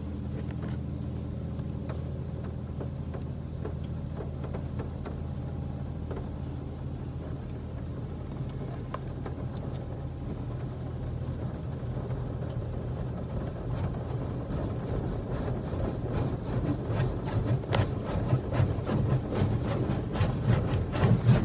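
Heard from inside a car's cabin: a steady low hum, then the high-pressure water jets of a touch-free Autec Evolution car wash spraying against the car's body and windows, growing louder over the second half.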